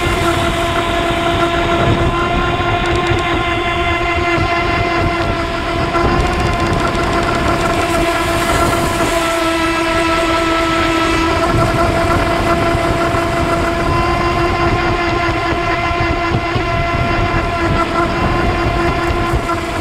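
AquaCraft MiniMono RC boat's electric motor running at a steady high-pitched whine, heard close up from the cowling, with water rushing and splashing against the hull.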